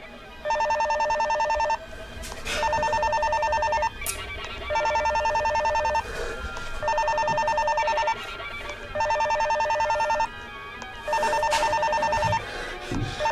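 Wall-mounted telephone ringing: a trilling two-tone ring, about a second and a quarter long, repeated six times with short pauses between, with a seventh ring starting at the very end.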